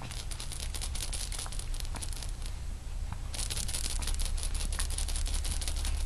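Crinkling, crackling rustle made of many small clicks a second, thicker in the second half, over a steady low hum.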